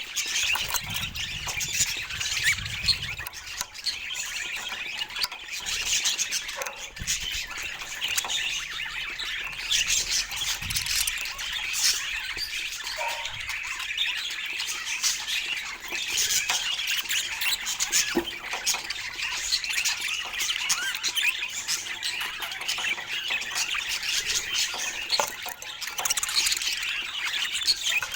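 Budgerigars chattering and chirping continuously, many short calls overlapping.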